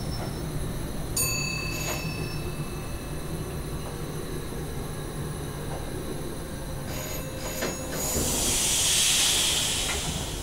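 SGM Sprinter electric train running along the track, heard from the driver's cab, with a steady low rumble. Brief high wheel squeals and clicks about a second in, and a loud hiss that swells and fades near the end.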